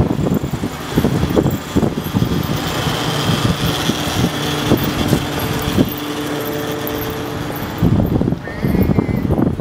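Road traffic on a city street: car engines and tyres running past, with a steady hum for a few seconds in the middle and frequent short knocks.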